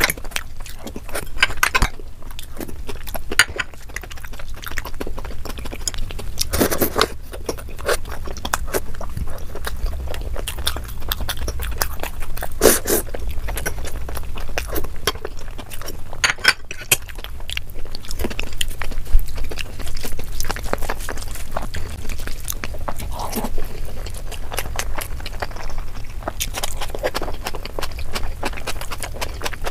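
Close-miked sounds of someone eating rice and curry with the hands, sped up to double speed: chewing and mouth smacking made of dense, quick wet clicks, with a few louder smacks.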